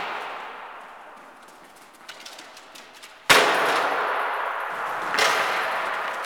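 A sudden loud clang about three seconds in, ringing on through the echoing hall, then a second, softer bang near the end: the clatter of dog agility equipment as the dog runs the course.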